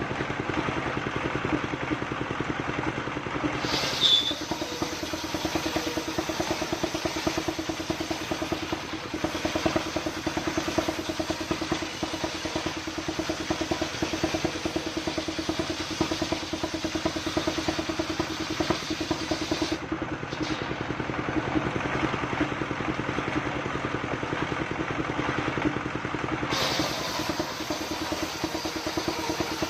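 Stationary single-cylinder diesel engine running steadily with a fast even pulse, driving a circular saw that rips a coconut-palm trunk lengthwise. A brief sharp high-pitched sound stands out about four seconds in.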